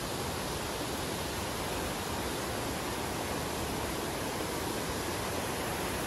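Steady rush of the Triberg waterfalls, water cascading over mossy rocks.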